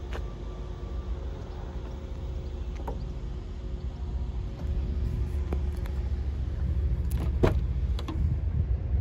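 A steady low rumble on the microphone grows louder about four and a half seconds in. A few scattered clicks sit over it, with a sharper knock about seven and a half seconds in.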